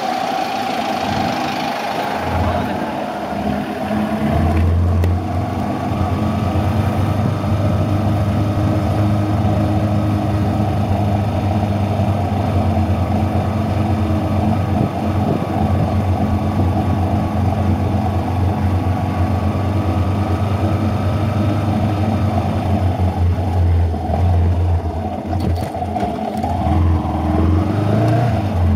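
Motorcycle engine running steadily as the bike rides along, its pitch shifting a little near the start and again near the end as the revs change.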